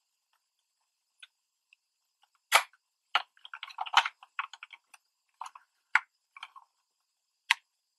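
Hands handling a 1/24 diecast model car: small clicks, taps and short rubbing sounds from fingers on the body and its opening parts. It is almost silent for the first two seconds, then sharp clicks come about two and a half, four, six and seven and a half seconds in.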